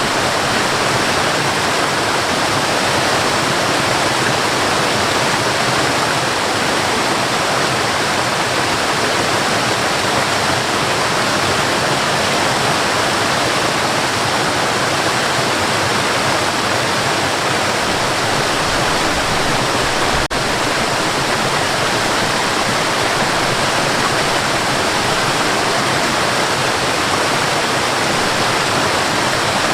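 Forest waterfall: falling water rushing steadily and evenly, with a split-second dip in the sound about twenty seconds in.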